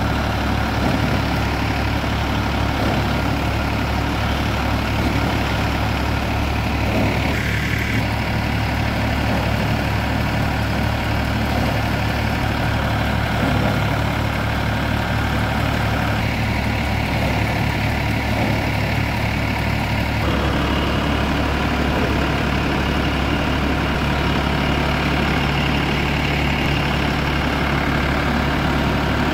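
Tractor engine running at a steady speed, driving a Dashmesh paddy thresher through its power take-off, with the threshing drum's steady rush over the engine's low hum. The tone shifts slightly a couple of times.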